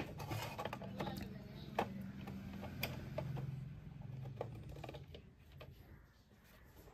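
Irregular light clicks and knocks as a mixer grinder's base is handled and turned over on a workbench, thinning out after about five seconds.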